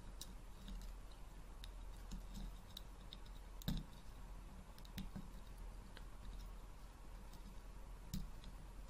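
Small, scattered plastic clicks and taps of jumper wires being pushed onto Arduino header pins and handled, with three sharper clicks spread a second or more apart.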